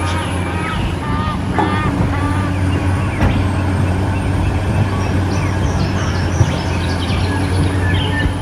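A steady low engine-like hum, with short high chirps over it in the first few seconds.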